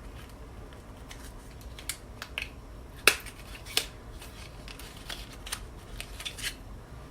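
Scattered light clicks and taps of a liquid lipstick and its packaging being handled and opened, with a sharper click about three seconds in and another shortly after.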